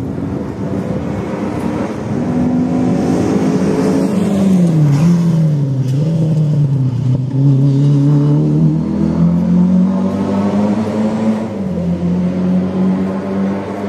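A rally car engine at high revs, its pitch climbing, dropping sharply, then wavering and climbing again as the driver works through the gears. It grows louder toward the middle and eases off toward the end, as the car comes close and moves on.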